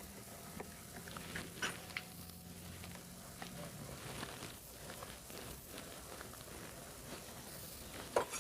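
Faint, scattered small clicks and taps of cable terminals and hardware being handled while a power cable is fitted to a motorcycle engine, with a cluster of louder clicks near the end. A faint low hum sits under the first few seconds.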